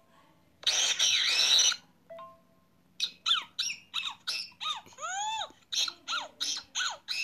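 WhatsApp voice messages playing back one after another through a phone: a loud rushing noise about a second in, a short beep, then from about three seconds on a quick run of squeaky calls, each rising and falling in pitch.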